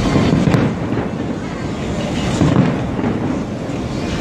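Aerial fireworks shells bursting overhead: deep repeated booms, loudest about half a second in and again about two and a half seconds in, with one sharp crack about half a second in.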